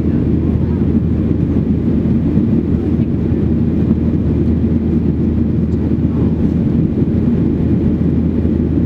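Cabin noise of a Boeing 737-800 climbing after takeoff, heard from a seat over the wing: its CFM56-7B turbofans and the airflow make a steady low drone that doesn't change.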